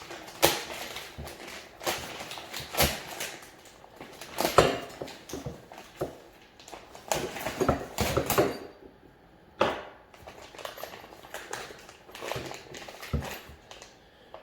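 Packaging being opened and small parts handled: irregular plastic rustling and crinkling with sharp clicks and taps, busiest in the first half and sparser near the end.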